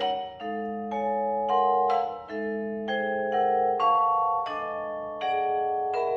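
Vibraphone played with mallets in a contemporary solo piece: a quick run of struck chords and notes, about two a second, each left ringing into the next.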